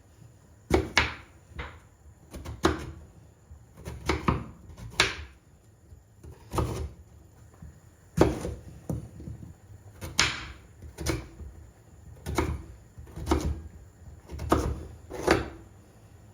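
Kitchen work: a slow, irregular series of sharp knocks on wood, about one a second, each with a dull thud.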